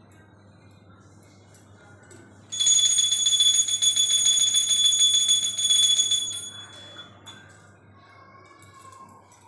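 A hand bell rung rapidly during puja worship: a bright, fast ringing that starts a couple of seconds in, lasts about four seconds, then fades away.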